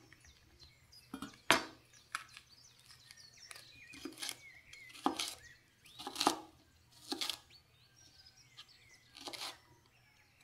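Santoku knife chopping a bell pepper on a wooden cutting board: about eight single chops at uneven spacing, each a crisp cut ending in a knock of the blade on the board.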